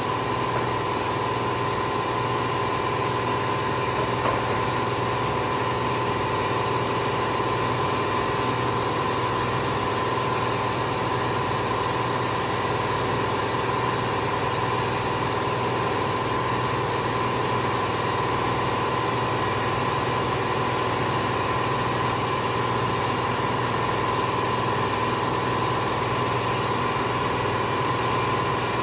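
Steady hum of shop machinery running, with a constant high whine over a low drone.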